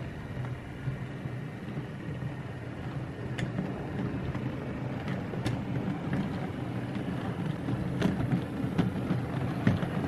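OO gauge model train running past: a steady low drone, with a few sharp clicks as the wheels of the parcels vans roll along the track.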